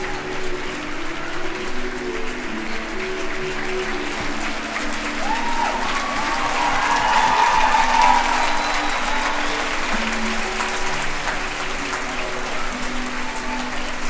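Cinema audience applauding over the film's end-credits music, the clapping dense and steady and swelling about halfway through, with sustained low musical notes underneath.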